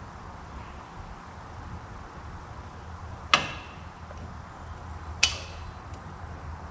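Two sharp hammer strikes on metal, about two seconds apart, each with a brief ring, tapping the Scag mower's front caster assembly back together.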